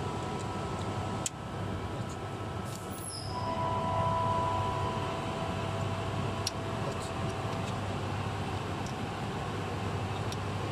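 Steady mechanical hum of background machinery with a few light clicks; about three seconds in it grows louder, with a clear steady tone for a couple of seconds.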